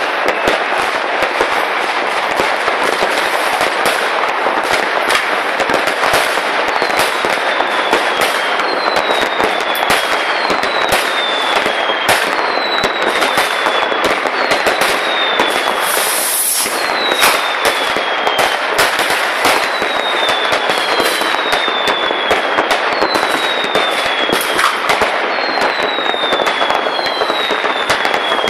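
New Year's Eve fireworks and firecrackers banging and crackling in a dense, unbroken barrage from all around. From about a quarter of the way in, a high whistle that falls in pitch repeats about every second and a half. A brief high hiss comes a little past halfway.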